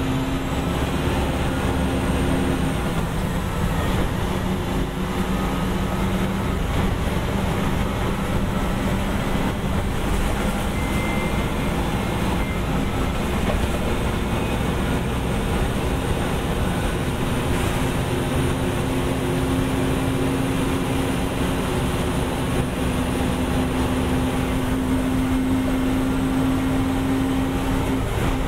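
1989 Gillig Phantom transit bus under way, heard on board: its Detroit Diesel Series 50 diesel runs with a steady drone over road and body noise, a faint high whine above it. The engine tone rises and holds strong through the second half.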